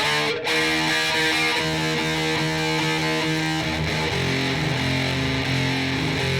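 Ibanez S470 electric guitar played through an amp, letting chords ring and changing them every second or two, with a brief break about half a second in.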